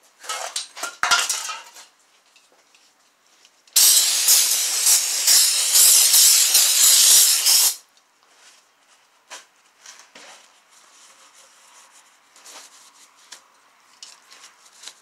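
Aerosol can of brake cleaner sprayed in one continuous burst of about four seconds, a loud even hiss, cleaning the outside of a freshly sealed engine oil pan. Short clattering and rustling come before the spray, and faint rubbing follows it.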